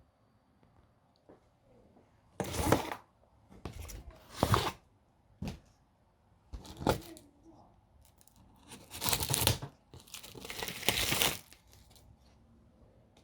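Cardboard box packaging being torn and cut open, in a series of short tearing and crinkling bursts with pauses between them.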